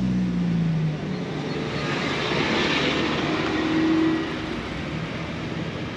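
A passing motor vehicle: a steady engine drone that drops in pitch and fades about a second in, then a rushing noise that swells and cuts off after about four seconds.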